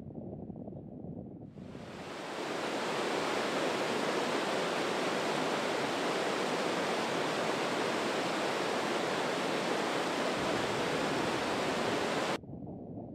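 Rushing water of the West Lyn River tumbling over boulders and small waterfalls: a steady hiss that fades in about a second and a half in and cuts off suddenly near the end. Before and after it, only a quieter low outdoor rumble.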